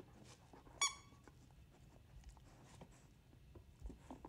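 A dog chewing a rubber squeaky toy: one short, high squeak about a second in, with faint clicks of chewing around it.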